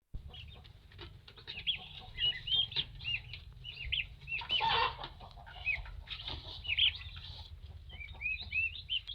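Young chicks peeping: many short, high, arching cheeps overlapping throughout, with a louder burst about halfway through, over a low steady rumble.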